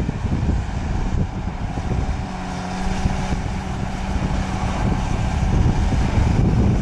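Case CX240 excavator's diesel engine running as the boom and arm move and the bucket lowers, a dense low rumble. A steady hum comes in about two seconds in and holds for three or four seconds before fading back into the rumble.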